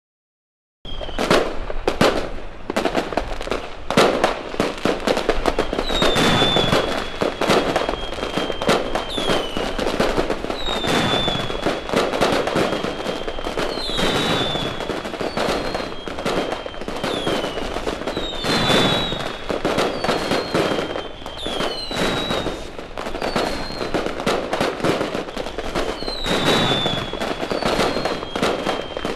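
Fireworks going off densely: rapid crackling and bangs, with high whistles that slide slightly down in pitch recurring every few seconds. The sound starts suddenly about a second in.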